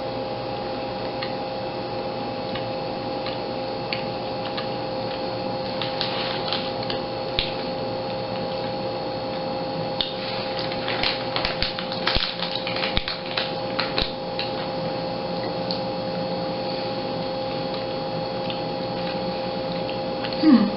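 Plastic snack bag crinkling as it is opened and handled, with scattered clicks and a dense run of crackles about halfway through, over a steady electrical hum. A brief voiced sound with falling pitch comes near the end.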